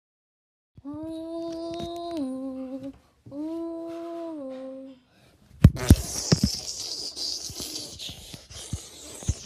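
A person humming two held notes, each stepping down in pitch near its end. About halfway through they give way to sharp knocks and rustling: handling noise from a phone camera being moved about.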